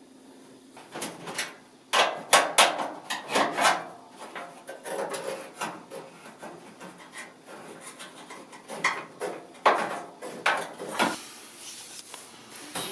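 A new drive belt being worked onto the pulleys inside a Kenmore HE2 front-loading dryer: irregular scraping, rubbing and knocking as hands, belt and the drum and sheet-metal parts move against each other.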